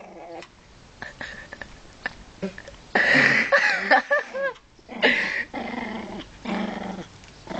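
Dogs growling in a scuffle between an American Staffordshire terrier mix and a Pekingese, in several loud bursts, the first about three seconds in.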